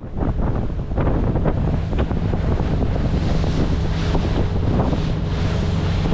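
Heavy wind buffeting the microphone over a boat motor running steadily at trolling speed, with water rushing and slapping around the hull.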